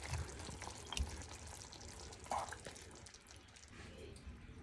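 Paneer curry gravy being ladled from the pan into a serving bowl: faint soft drips of gravy, with a couple of light clicks from the ladle near the start and about a second in.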